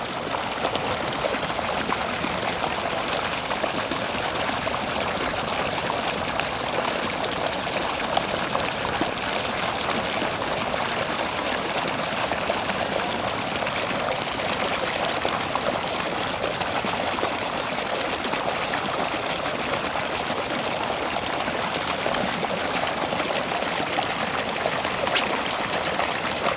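Steady running water, splashing and trickling without a break.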